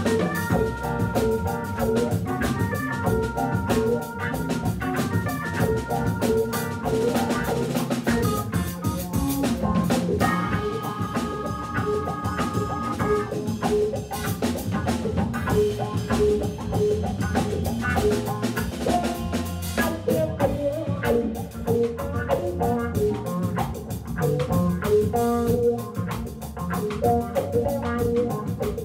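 Organ trio playing a funk tune live: Hammond B3 organ through a Leslie speaker, electric guitar and drum kit together, with long held chords near the start and again about ten seconds in.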